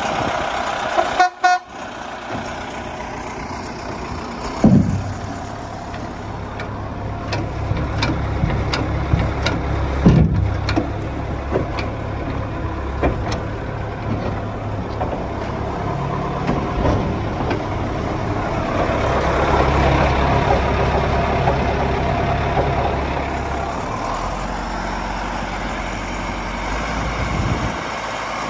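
Caterpillar 950 wheel loader's diesel engine running steadily, with two sharp metallic knocks and a few fainter clicks in the first ten seconds. The engine grows louder for a few seconds about two-thirds of the way through, and near the end the loader arms are lifting the bucket.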